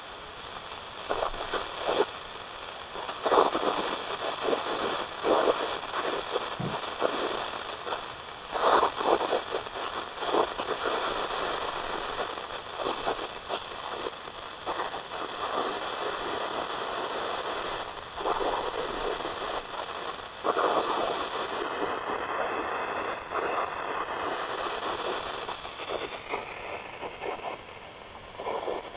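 Dell Inspiron 17R SE (7720) laptop speakers putting out a steady hiss with irregular crackles and pops, and faint steady high tones under it. This is the electrical noise fault that appears at boot or resume from sleep only when the power adapter is plugged in and the machine is near room temperature. New speakers and reinstalled audio drivers have not cured it.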